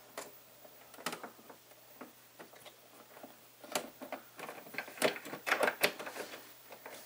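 Light, irregular clicks and scrapes of a homemade tri-wing bit, made from an L-shaped hex key, turning in a screw in a plastic record-player case. The clicks come thicker from about four seconds in.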